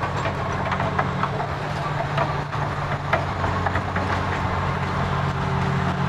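Large Caterpillar crawler bulldozer's diesel engine running steadily while it works, with the repeated clanking and clicking of its steel tracks.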